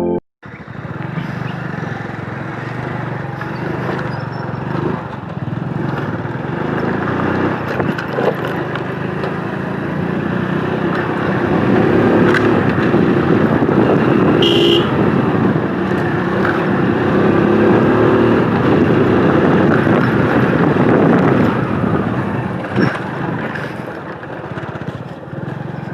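Motorcycle being ridden, its engine mixed with rushing wind noise, getting louder through the middle and easing off near the end.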